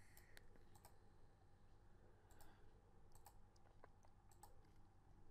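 Faint computer mouse clicks, a few close pairs spread over several seconds, against near-silent room tone.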